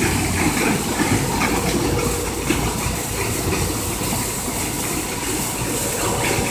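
Concrete pump truck running steadily, its engine and pump going with a continuous hiss and rumble as wet concrete is pumped into wall forms.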